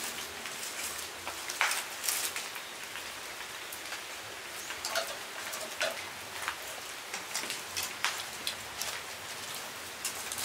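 Plastic bags and paper food wrappings crinkling and rustling in short, irregular crackles as hands pick at grilled food, over a steady hiss.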